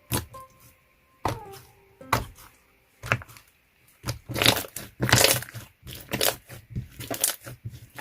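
Wood-glue-based slime being squished and pressed by hand, making sharp crackling pops: a few separate ones at first, then a dense run of them about halfway through.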